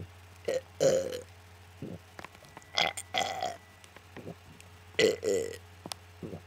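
A young girl burping three times, about two seconds apart, each burp about half a second long with a short click just before it.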